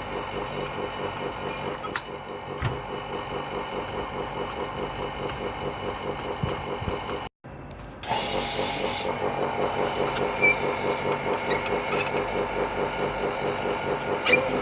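A small machine motor running steadily with a fast, even pulse, with a brief sharp squeak about two seconds in and another at the very end.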